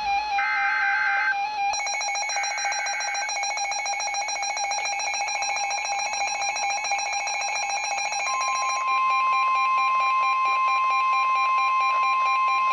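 NOAA Weather Radio emergency alert signal: the last of three SAME header data bursts, a short warbling electronic screech about two seconds in, over a rapidly pulsing electronic alarm beep. About eight seconds in, the steady 1050 Hz weather radio warning alarm tone starts and holds.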